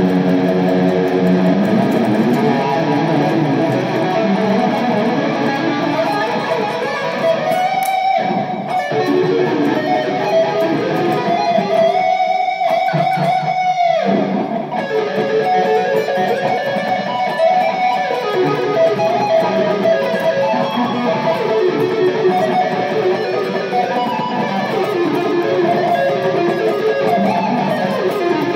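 Telecaster electric guitar playing rock: strummed chords and single-note lines, with a couple of long held notes near the middle, the second lasting about two seconds.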